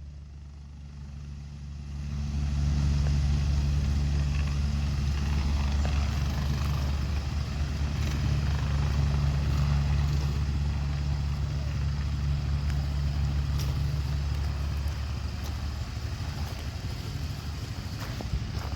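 Police helicopter's turbine and rotor running with a strong steady low hum. It grows sharply louder about two seconds in as the helicopter takes off, then slowly fades near the end.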